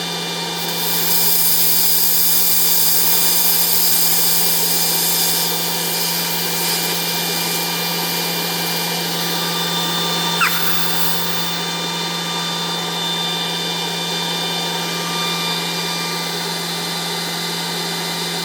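High-pressure air hissing out of a fill hose's bleeder valve for about five seconds, and again briefly near the middle with a short falling squeak, as the hose is depressurised. Under it the compressor system's cooling fans hum steadily.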